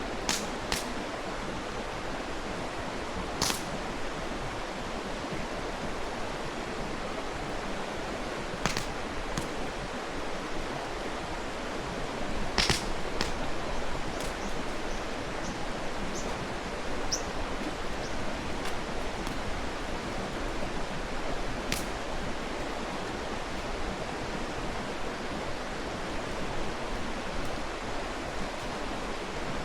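Mountain stream rushing steadily, with a dozen or so sharp crackles and pops from a wood campfire scattered through it, the loudest about a third and about halfway in.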